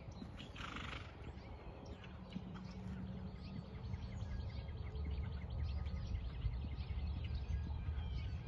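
A horse's hoofbeats on sand arena footing, growing louder from about halfway through as the horse comes closer.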